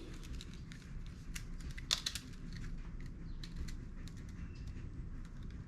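Scattered light clicks and small handling noises, with a cluster of sharper clicks around one and a half to two seconds in, over a low steady background.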